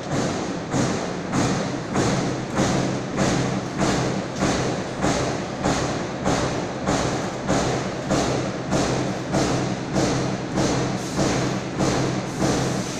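Steel coil press line running: a steady, even rhythm of thuds, about three every two seconds, as the press strokes and the servo feeder indexes the strip, over a constant low machinery hum.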